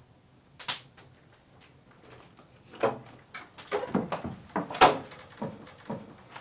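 A wooden door being opened: a single click under a second in, then a run of irregular knocks and clatter, loudest about five seconds in.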